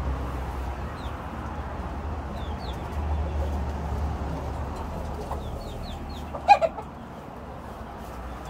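Gamecock rooster giving a short, loud squawk about two-thirds of the way through as it is taken out of its cage, with faint chicken clucks and chirps over a steady low hum.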